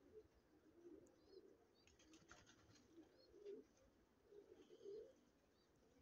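Faint cooing of domestic pigeons, low warbling coos repeated several times, with a few short high chirps from small birds between them.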